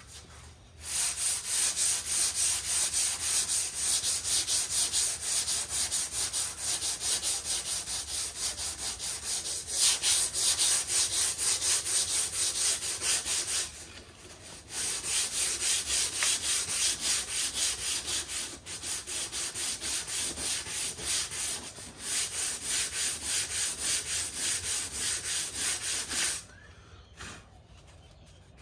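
Hand block-sanding a car body panel: sandpaper on a sanding block rubbed back and forth in quick, even strokes to block the repair back flat. It pauses for about a second halfway through and stops a couple of seconds before the end.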